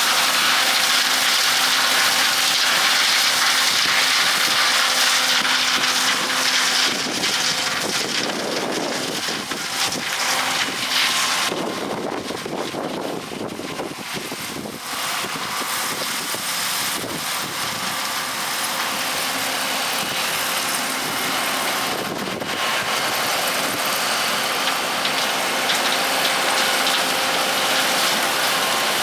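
Combine harvester running steadily while shelling corn: a constant machine hum with a strong high hiss, which eases for a few seconds around the middle before returning.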